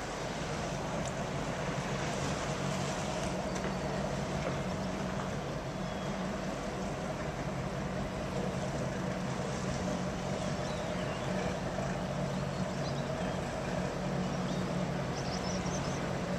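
Steady low hum with an even rushing noise over it, heard from the deck of a large cruise ship under way: the ship's machinery plus wind and moving water.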